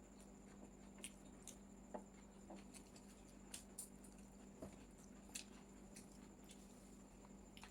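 Faint eating sounds: about a dozen soft, scattered clicks and squishes of chowmein being picked up by hand and chewed, over a steady low hum.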